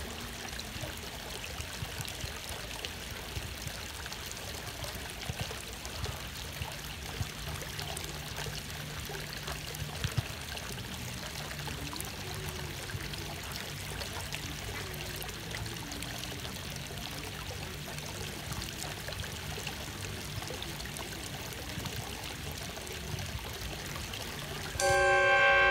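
Water flowing steadily over a low weir, a constant rush and trickle. Near the end a loud sustained chord of music comes in over it.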